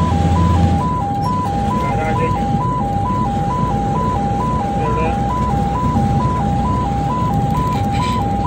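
Ambulance's electronic two-tone hi-lo siren, alternating steadily between two pitches about two and a half times a second, heard from inside the cab over the engine and road noise.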